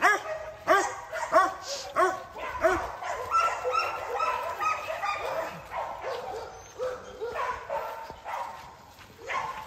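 Pit bull barking: a quick run of short barks, about one every two-thirds of a second for the first few seconds, then higher, drawn-out whines and yips.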